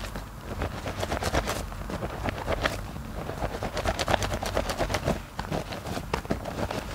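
Wet hands squeezing and rubbing a bar of soap in a basin of soapy water, the thick lather making a continuous run of quick, irregular squelches, pops and crackles.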